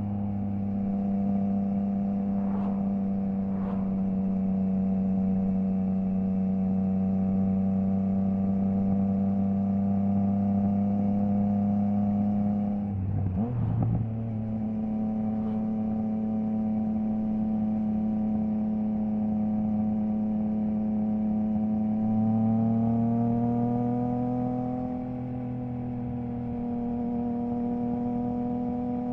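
Triumph Trident 660 inline-three engine running at a steady, high engine speed through a Zard stainless full exhaust with the baffle removed. There is a brief stutter in the note about halfway through, and the pitch climbs slightly a few seconds before the end.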